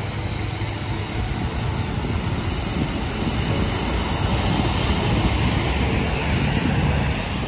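Heavy rain with a dump truck driving past on the flooded road, its engine and its tyres on the water rising to the loudest point over the second half.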